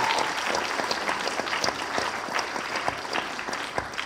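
Audience applauding, the clapping gradually thinning out toward the end.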